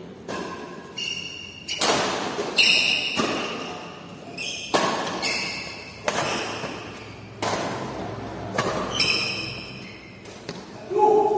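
Badminton rally: rackets striking the shuttlecock again and again, each hit echoing in the hall, with high squeaks from shoes on the tiled court between the hits. A short shout near the end.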